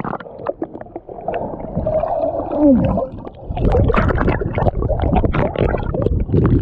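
Creek water sloshing, splashing and gurgling close around the microphone as a person wades into deep water, with bubbly glugs that fall in pitch about two and a half seconds in.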